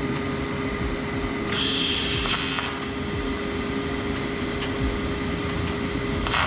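AHP AlphaTIG 201XD welder running with a steady fan hum, and a brief hiss about a second and a half in. Near the end the AC TIG arc strikes and starts buzzing on aluminium.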